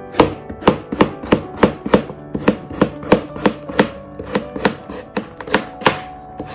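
Kitchen knife slicing a cucumber thinly on the diagonal against a cutting board: a steady rhythm of sharp knife-on-board taps, about three a second.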